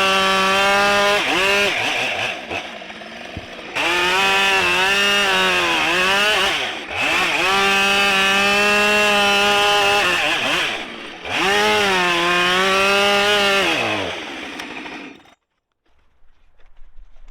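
Husqvarna 572XP two-stroke chainsaw held at full throttle while cutting a big ash log, its pitch sagging under load in several spells and dropping back toward idle between cuts. The engine is shut off near the end.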